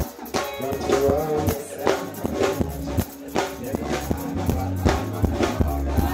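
Dancehall music with a steady beat of about two drum hits a second over a bass line.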